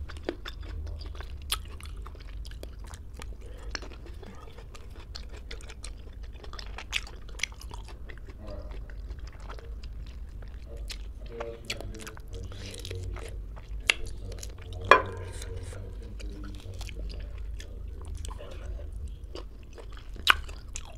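Close-miked chewing, biting and lip-smacking of someone eating fresh fruit such as rambutan and ambarella, with scattered wet clicks from the mouth and fingers. The loudest click comes about two-thirds of the way through, over a low steady hum.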